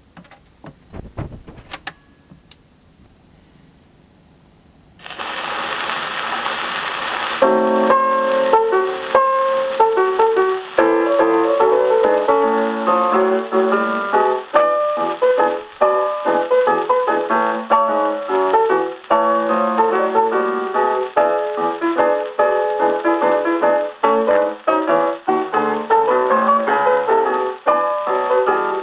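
A few clicks as the phonograph is handled, then about two seconds of steady surface hiss from the lead-in groove of a 78 rpm shellac record. After that, solo jazz piano plays from the record on a Victor Victrola VV-1-90 acoustic phonograph, with surface hiss under the music.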